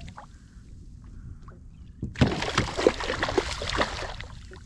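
A hooked speckled trout thrashing at the water's surface. A burst of splashing starts about two seconds in and lasts about two seconds.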